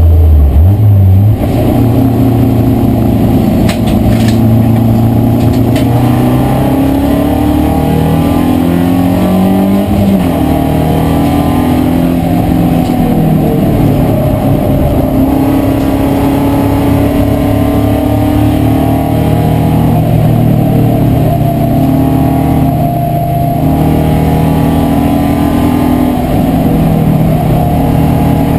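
BMW E36 318iS race car's four-cylinder engine heard from inside the cockpit at racing speed, its pitch climbing through the gears and falling away under braking, over and over. A few sharp clicks come about four seconds in.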